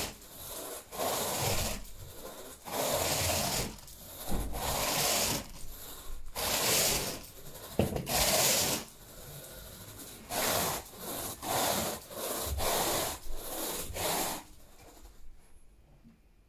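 Carpet rake dragged through thick carpet pile in a series of strokes, each under a second long with short pauses between, grooming the pile. The strokes stop near the end.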